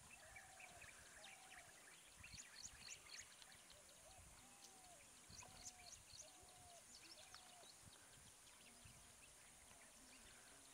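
Faint wild ambience: a bird repeats a short arched note in two runs of several notes, with scattered higher chirps from other birds over a steady high hiss.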